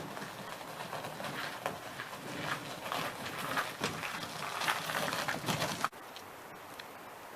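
Irregular clattering and knocking, like gear or utensils being handled, that cuts off abruptly about six seconds in, leaving a steady faint hiss.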